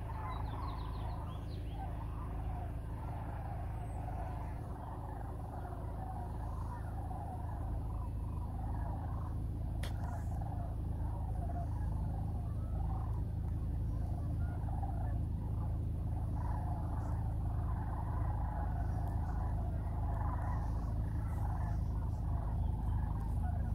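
A large migrating flock of sandhill cranes calling overhead: many overlapping rolling, trumpeting bugle calls in a steady chorus. A low background rumble runs underneath.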